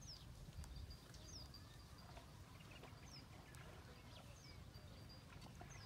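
Near silence: a bird's faint, short, high chirps, each falling in pitch, repeating about once a second over a low rumble.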